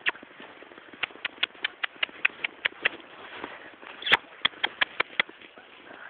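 Quick, sharp crunching steps in snow, about five a second, in two runs with a short pause between them and one louder click just after the pause.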